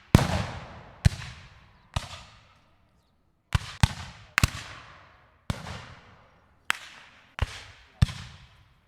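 Rifle-musket shots fired at random intervals, about ten in all. Each sharp report trails off in a long echo, with a pause of about a second a third of the way through.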